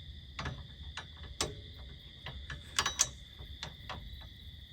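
Irregular sharp metallic clicks and knocks of hand tools working on the wheel hub bolts, the loudest pair about three seconds in.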